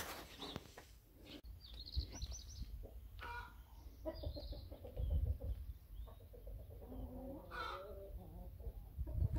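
Faint clucking of chickens, with a few high bird chirps about two seconds in and low rumbles on the microphone.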